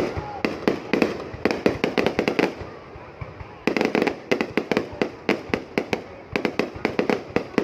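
Aerial fireworks going off in rapid volleys of sharp bangs and crackles, easing into a short lull about three seconds in before a dense run of bangs resumes.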